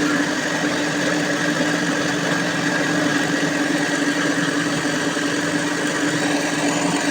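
A motor-driven workshop machine running steadily: a constant hum with a steady higher whine over it, unchanging throughout.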